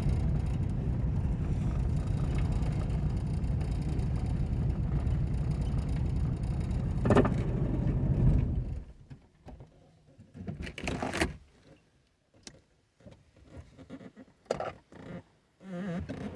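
Car with a 4.6 L V8 being driven, a steady low engine and road rumble heard from inside, with a single knock about seven seconds in. The rumble cuts off suddenly after about nine seconds, leaving quiet broken by short clicks and rustles.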